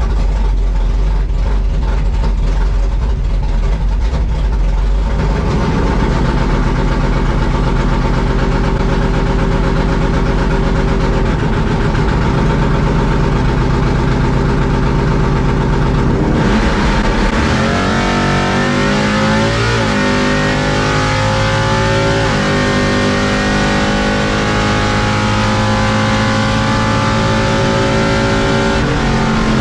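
Drag car engine heard from inside the cockpit: a low rumble at the starting line, then full throttle about halfway through, the revs climbing and dropping back twice at the gear changes before pulling steadily at high revs.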